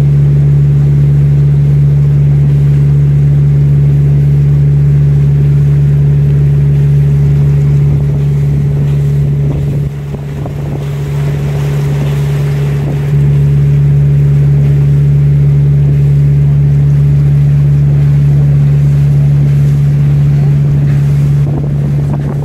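Tour boat's engine running with a steady low drone, heard on board. It weakens briefly about ten seconds in, while wind and rushing water come up.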